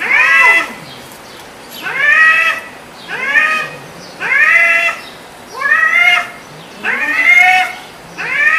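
Cats in a face-off yowling: a string of about seven drawn-out yowls, each rising and then falling in pitch, roughly one a second. These are the threat calls of a standoff between two cats.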